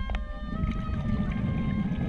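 Background music with held notes that change pitch, over a low, steady underwater rumble.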